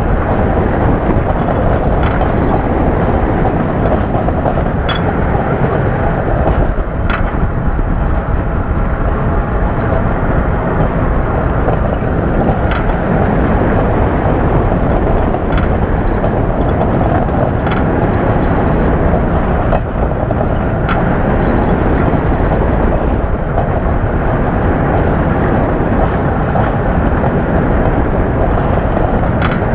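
Roller coaster ride heard from on board: a steady rush of wind and rumble of the train running along the track, with scattered sharp clacks.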